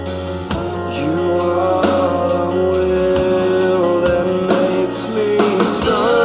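Background music: a guitar-led instrumental passage of a pop-rock song, with held notes that slide up in pitch a couple of times.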